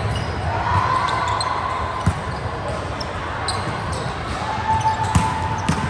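Indoor volleyball being played: the ball struck and hitting the court, with a few sharp hits standing out against the echoing hall noise.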